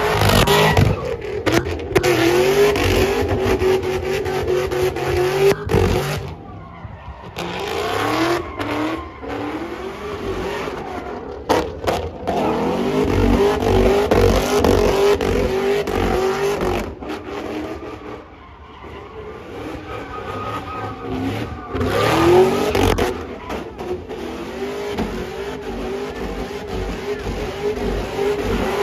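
A car engine held at high revs, its pitch wavering up and down, with tyres squealing as the car spins donuts. The revs drop off twice and climb again.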